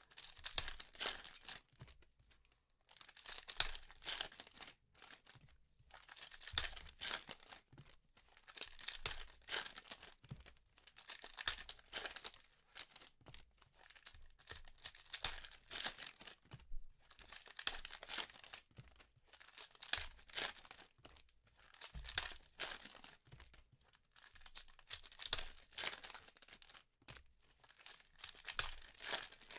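Trading-card pack wrappers being torn open and crinkled by hand, in short repeated rustles every second or so, with cards handled between them.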